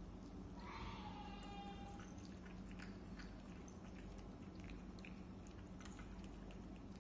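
A domestic cat meows once, a call of about a second and a half that ends on a lower held note. It is followed by scattered soft clicks of cats chewing and licking at their food.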